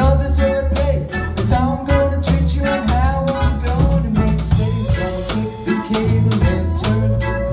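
Live pop song: keyboard and guitar playing a steady beat over a moving bass line, with a voice singing over it.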